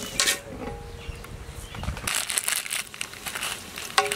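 Whole spices dropped into hot oil in a large steel pot, sizzling and crackling from about halfway in.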